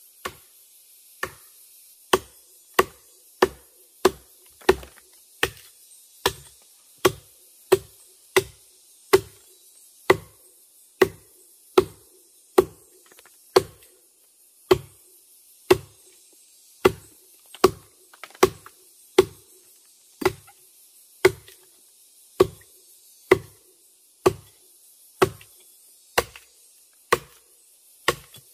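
Wood being chopped: a long, steady run of single sharp strikes, about three every two seconds, each with a brief ringing note.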